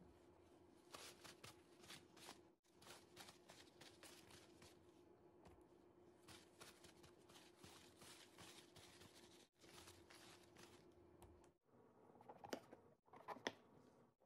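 Faint paper rustling as king oyster mushrooms are handled on newspaper and wiped with a paper towel, over a low steady hum. Near the end a kitchen knife cuts through a mushroom on a wooden cutting board, a couple of sharper knocks that are the loudest sounds.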